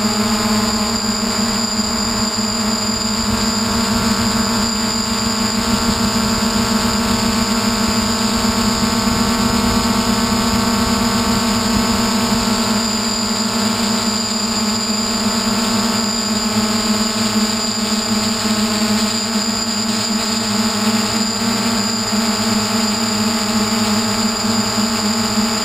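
Electric motors and propellers of a DJI hexacopter in steady flight, picked up by a camera mounted on the craft: a loud, even drone with a high whine over it.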